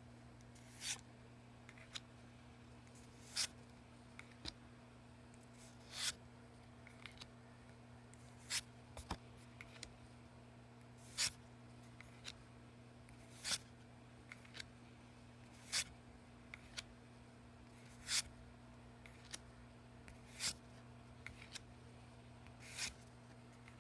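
Pokémon trading cards being flipped one at a time, each card sliding off the stack with a short, soft swish about every two and a half seconds, with light taps and clicks of handling between.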